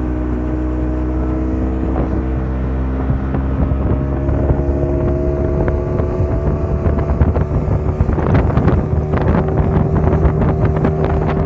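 Small fishing boat's motor running steadily under way, its pitch creeping up slightly. From about eight seconds in, gusts of wind on the microphone add rough rumbling.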